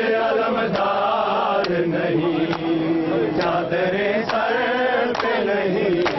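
A crowd of men chanting an Urdu noha lament for Karbala in unison, with sharp chest-beating slaps (matam) landing together about once a second to keep time.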